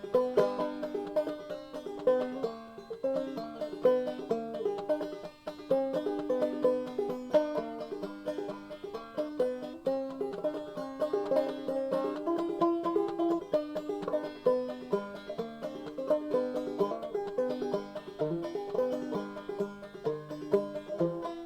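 Background music: fast plucked banjo in a bluegrass style over a steady bass line.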